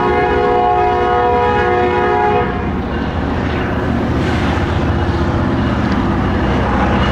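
EMD GP38-3 diesel switcher locomotive sounding a held multi-note horn chord, which cuts off about two and a half seconds in. After that comes the steady low rumble of the locomotive approaching.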